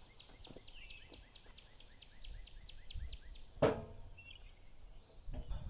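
A songbird's rapid trill of short falling notes, about five a second, fading out around two seconds in. A little past halfway comes a single sharp wooden knock with a brief ring as a sawn pine board is pulled off the cant on the sawmill bed, followed by scraping and handling noise near the end.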